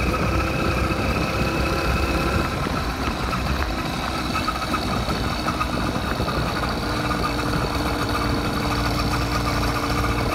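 80cc motorized bicycle engine running steadily while riding, its note wavering slightly, over low rumble from wind and tyres on a gravel road.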